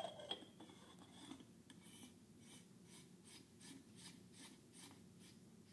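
Oil catch can being screwed back together by hand, its threads scraping in a run of faint, quick strokes, about three or four a second.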